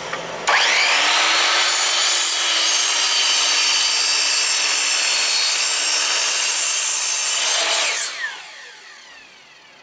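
AEG drop saw (sliding mitre saw) starting about half a second in, its whine rising as the motor spins up, then cutting steadily through a treated pine sleeper for about seven seconds. Near the end the sound dies away with a falling whine as the blade spins down.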